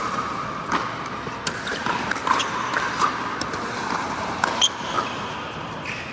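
Pickleball paddles hitting a plastic pickleball: a string of sharp, irregular pops, sometimes two within half a second, over a steady background hubbub.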